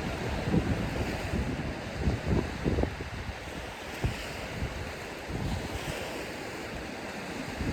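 Surf washing onto a sandy beach, a steady hiss, with gusts of wind buffeting the microphone in uneven low rumbles.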